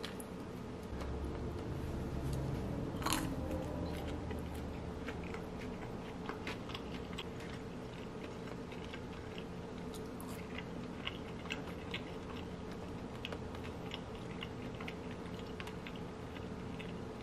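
Close-up chewing and crunching of fried chicken tenders and crinkle-cut fries, with many small crisp crackles and one louder crunch about three seconds in.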